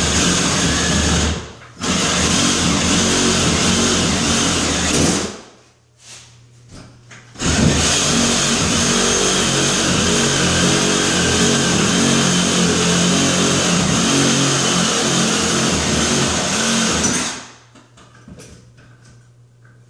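Reciprocating saw running and cutting through a fiberglass bathtub surround. It stops briefly about a second and a half in, pauses for about two seconds around five seconds in, then runs about ten seconds more before stopping near the end.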